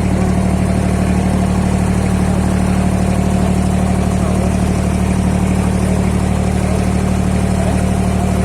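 Boat engine running steadily at constant speed, an even hum at one pitch that does not rise or fall.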